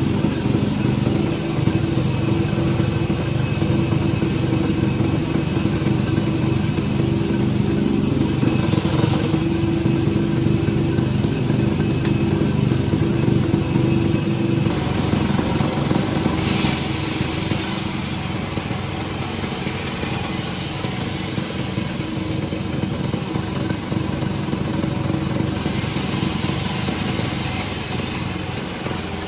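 Sawmill machinery running with a steady engine-like drone; about halfway through the drone's tone changes and it turns noisier, with several stretches of hiss.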